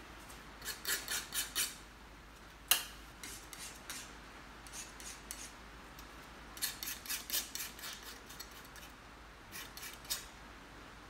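Painting tool stroking paint onto a canvas on an easel: short, scratchy strokes in quick runs of four to six, with one sharp tap about two and a half seconds in.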